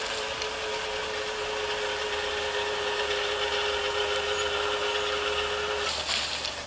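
Railroad crossing gate mechanisms' motors whining steadily as the gate arms rise. The whine stops about six seconds in, as the arms reach upright.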